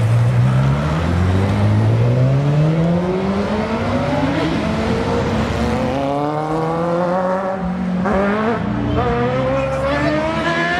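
Sportbike inline-four engines accelerating hard: a Yamaha R6 revs up in one long climb in pitch, then, about six seconds in, a Kawasaki Z800 pulls away, its pitch climbing, dropping back and climbing again twice.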